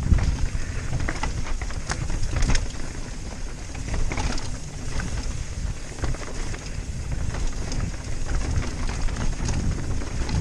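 Rocky Mountain Slayer mountain bike riding down rough, rocky singletrack: tyres rolling over rock and loose stones, with repeated clicks and clattering knocks from the bike over the bumps. A steady wind rumble buffets the helmet-mounted microphone.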